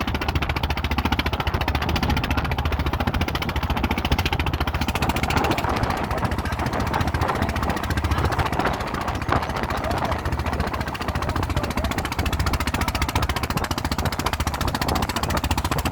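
A boat's engine running steadily under way, loud and low-pitched with a fast, even pulse.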